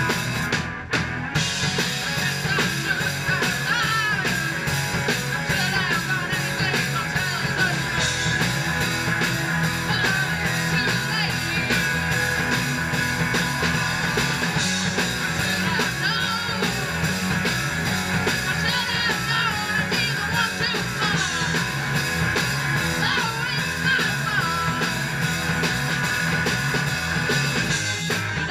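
Live rock band playing without a break: electric guitar and drum kit.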